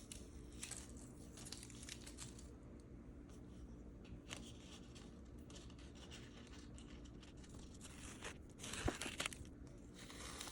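Tape being peeled off the edges of drawing paper: faint, intermittent tearing and crackling, with a louder crinkling burst about nine seconds in.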